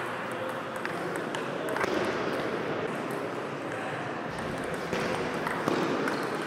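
Table tennis rally: the ball clicking off the bats and the table in short, irregular strikes, with faint voices in the background.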